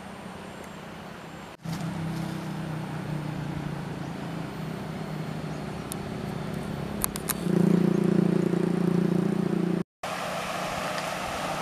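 A steady low engine drone starts suddenly about a second and a half in and grows louder about two-thirds of the way through, with a couple of faint clicks. It cuts off abruptly and gives way to the even rush of a stream running over a low weir.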